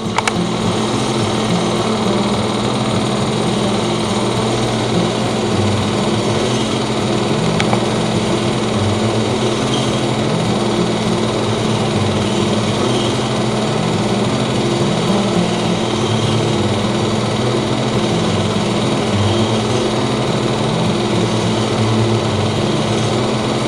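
Old engine idling steadily with a fast, even clatter.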